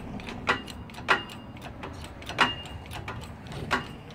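Hydraulic bottle-jack shop press being pumped to force a bearing and shaft out of a GY6 scooter case under load: four sharp metallic clicks at uneven gaps, each with a brief high ring.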